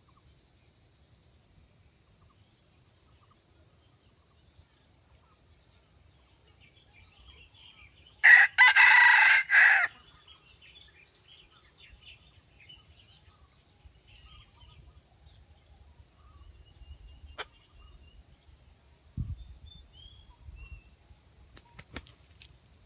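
Red junglefowl rooster crowing once, a loud, harsh crow of under two seconds about eight seconds into an otherwise quiet stretch. Faint small-bird chirps follow, and near the end there are a soft thump and a brief flurry of wing or foot movement.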